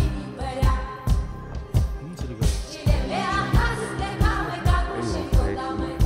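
Pop song with a singing voice over a steady beat of about two thumps a second.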